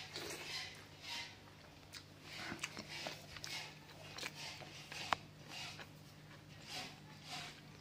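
Eating rice and curry by hand: a series of short wet smacks and chewing noises, about two a second, as the hand mixes rice on the plate and the mouth chews. A low steady hum lies underneath.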